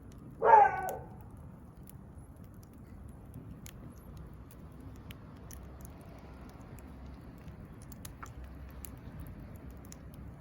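Wood fire crackling, with sparse faint pops over a low steady hiss. About half a second in comes a single short, loud pitched call lasting about half a second, the loudest sound here.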